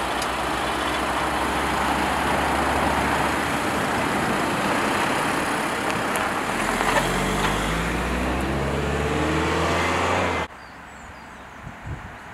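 A vehicle engine runs under a loud, steady rush of wind. About six and a half seconds in, the engine's pitch climbs steadily as it accelerates. About ten and a half seconds in the sound cuts off to a much quieter background with a couple of soft thumps.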